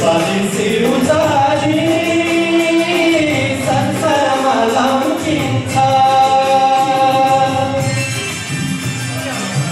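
Two men singing a song together into microphones over instrumental accompaniment, with long held notes that slide up and down in pitch.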